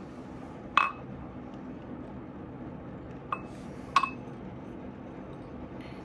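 Glass tumbler of water clinking three times as it is handled with a plastic dropper and set down on a tile floor: a sharp clink about a second in, then two more a little after three and at four seconds, each ringing briefly.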